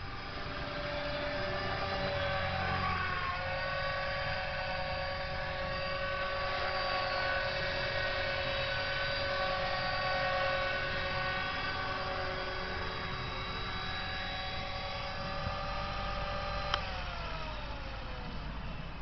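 Align T-Rex 450 electric RC helicopter with a steady, high whine from its brushless motor and rotor. About 17 seconds in there is a sharp click, and the whine falls in pitch as the rotor spins down after the helicopter sets down on the grass.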